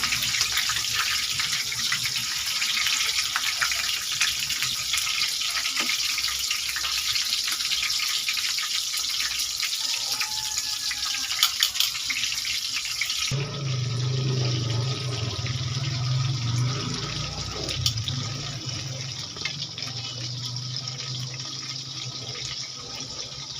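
Food frying in hot oil in a pan: a steady, dense crackling sizzle. About 13 seconds in, it changes abruptly to a duller, softer sizzle with a low hum under it.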